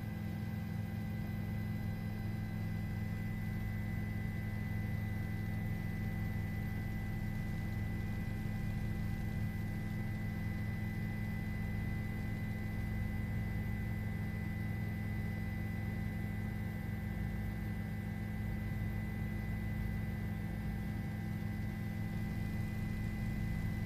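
Steady low hum with faint steady higher tones, unchanging throughout.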